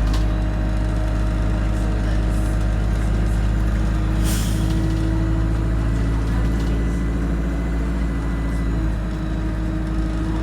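Inside a moving city bus: the engine and drivetrain run steadily with a deep rumble, a brief hiss of air about four seconds in, and a faint high whine that stops near the end.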